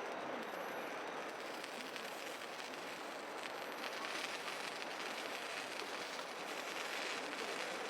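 Meat sizzling on a thick iron griddle over a wood fire: a steady, even hiss with a fine crackle.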